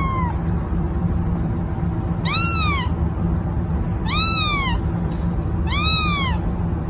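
A young kitten meowing three times, about two seconds apart; each call rises and then falls in pitch. A steady low hum sits under the calls.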